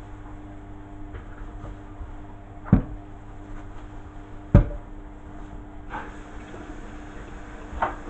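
Tumble dryer condenser unit knocking twice against a stainless steel sink as it is turned over by hand, with a lighter knock near the end. Tap water starts running onto it in the second half.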